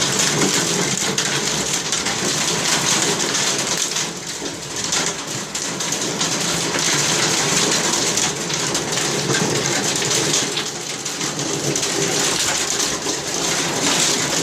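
Heavy thunderstorm rain pouring steadily onto surfaces: a dense, even hiss and patter.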